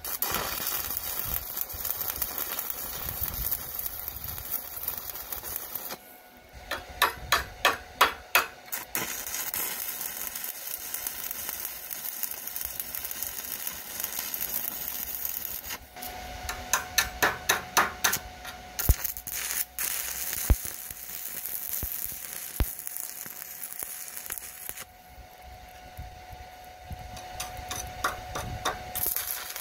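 Stick-welding arc burning 7018 electrodes on steel: a steady crackling hiss that breaks off and starts again a few times, with runs of sharp rapid pops about a quarter of the way in, past the middle and near the end.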